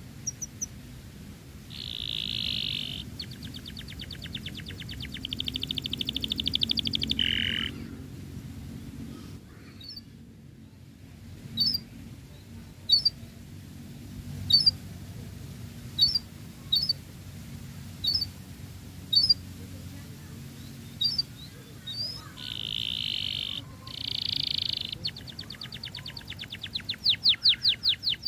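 Domestic canary singing: fast rolling trills and buzzy runs, with a stretch of short, sharp single chirps about once a second in the middle before the trills return.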